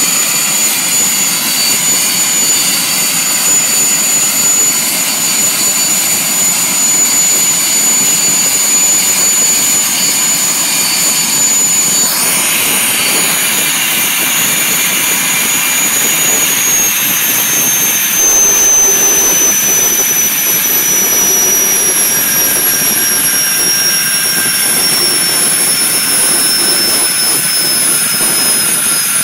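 Learjet 25's General Electric CJ610 turbojet running on the ground, loud and steady, with a high compressor whine that holds level and then, a little past halfway, slowly drops in pitch.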